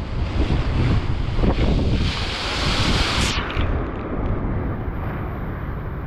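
Typhoon-force wind buffeting the microphone with a heavy low rumble over the wash of a rough sea. A louder hiss builds about two seconds in and cuts off suddenly a little after three seconds.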